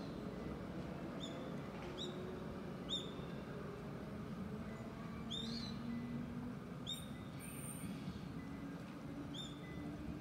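A bird calling: short, high, upswept chirps repeated about eight times at irregular intervals of roughly a second, over a steady low background rumble.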